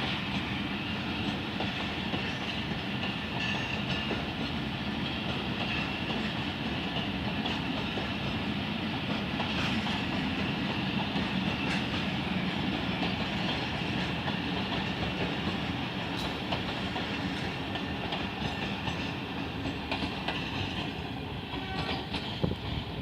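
Train hauled by a ZCU-20 diesel-electric locomotive running steadily along the track, easing off slightly near the end.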